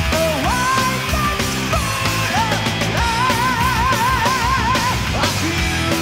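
Heavy metal band playing live, with drums, bass and distorted guitars. After some rising slides, a high note is held with vibrato for about two seconds midway.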